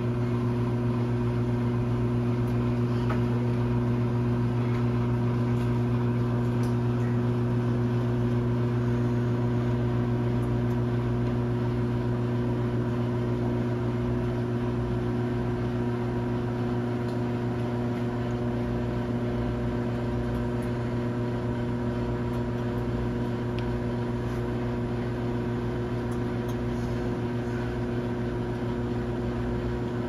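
Commercial microwave oven running, a steady low electrical hum over a fan-like whir.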